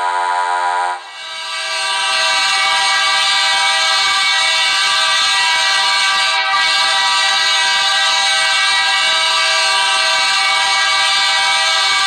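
Edmonton Oilers goal horn: a loud multi-tone air horn blown in one long steady blast. It starts about a second in and holds for about eleven seconds.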